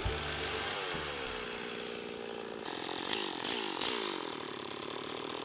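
Chainsaw engine running, its pitch falling and rising several times as the revs change.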